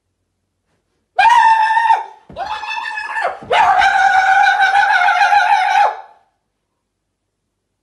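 A man imitating a dog that has spotted something outside, howling three times in a high falsetto; each howl holds one steady pitch and the last is the longest.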